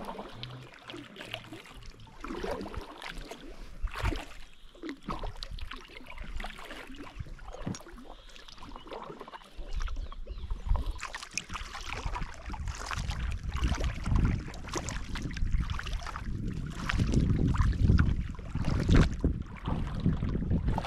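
Oars of an inflatable boat dipping and splashing in river water, with scattered knocks and splashes. From about halfway through, wind buffets the microphone with a fluctuating low rumble.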